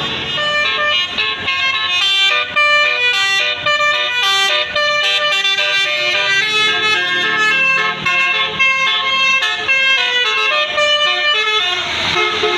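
Telolet basuri multi-tone bus horn playing a fast melody of short notes that step up and down in pitch, running into a noisier rush near the end.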